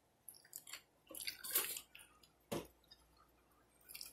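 Wet mouth sounds of someone eating fried chicken: chewing and lip smacking, a few short moist smacks. The loudest comes about a second and a half in and a sharp one about two and a half seconds in.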